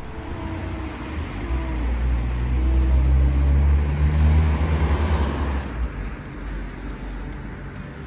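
A car driving past on a street: engine and tyre rumble that builds over the first few seconds and fades away about six seconds in, leaving quieter traffic noise.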